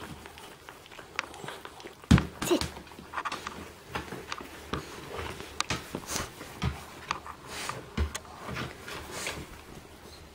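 Border terrier moving about and handling a toy: irregular clicks, scuffs and soft knocks, with a sharper thump about two seconds in and another near eight seconds.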